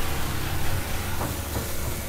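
Thick ribeye steaks sizzling on a grill over very hot coals: a steady hiss with a couple of faint ticks about halfway through.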